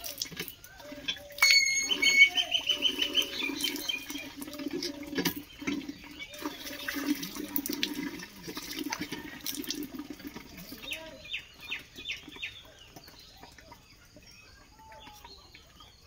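Water from a hand-operated tubewell pump splashing as face and hands are washed under the spout, fading out near the end. About two seconds in, a rapid high-pitched trill is the loudest sound.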